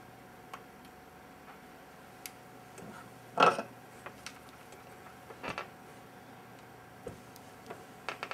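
A handful of light, irregular clicks and taps from soldering tools handled against a laptop board and BGA chip during solder removal. The loudest tap comes about three and a half seconds in, over a faint steady hum.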